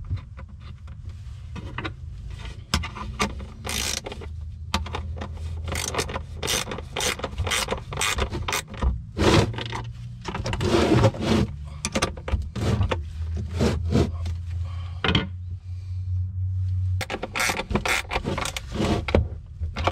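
Ratcheting wrench clicking in short runs, with metal scraping, as cable lugs are tightened onto the battery terminals.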